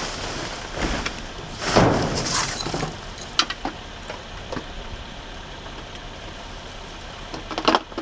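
Dumpster trash being rummaged through by hand: paper, cardboard and plastic packaging rustling and crackling, loudest about two seconds in, with a few sharp knocks and clinks and a short burst of clattering near the end.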